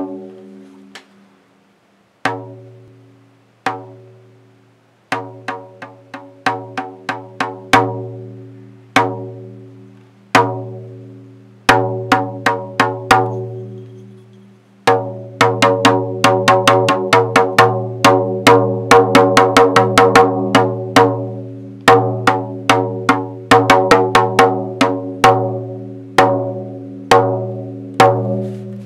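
Percussion music of pitched drum strikes, each hit ringing with a low tone and fading away. The hits come singly and spaced out at first, run together fast and dense in the middle, then thin out again.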